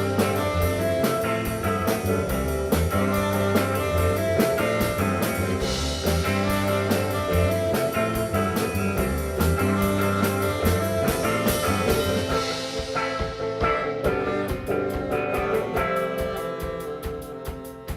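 A live rock band playing the instrumental end of a song, with guitar and a drum kit whose cymbals crash every few seconds. The music thins out and gets quieter over the last few seconds as the song winds down.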